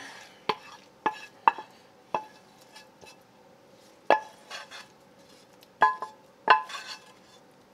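A metal spoon clinking against a nonstick frying pan as sautéed onions are scraped out of it into a mixing bowl. About seven sharp, ringing clinks come at uneven intervals.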